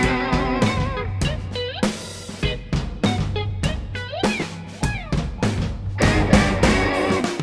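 Background rock music: electric guitar with bends and slides over a steady drum-kit beat.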